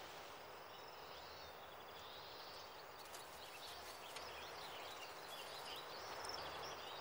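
Faint woodland ambience: small birds chirping and twittering now and then over a steady hiss.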